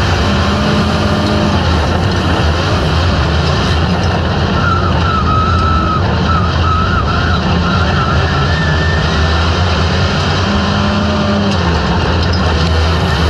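Race car engines running hard as a field of dirt-track cars laps the oval: a steady, loud engine din, with a wavering higher whine through the middle.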